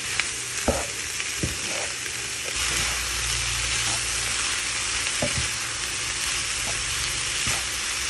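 Ground meat and chopped vegetables sizzling in a nonstick frying pan while being stirred with a wooden spatula, which knocks against the pan now and then.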